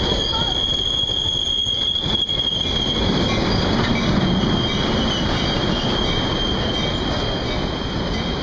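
Metra stainless-steel bilevel gallery coaches rolling past close by: a steady rumble of wheels on rail with a thin, steady high-pitched wheel squeal over it.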